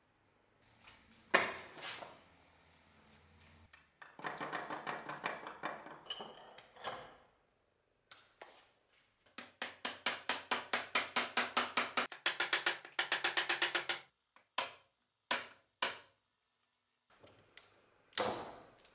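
Runs of sharp knocks, about five blows a second, from a wooden block hammering the old wooden handle out of a rusty splitting axe's head held in a steel bench vise. The runs are broken by sudden short silences, with a single loud knock early on and another near the end.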